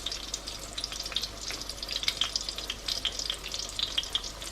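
Oil sizzling and crackling steadily around an eggplant omelette frying in a pan over medium heat, with many small pops throughout.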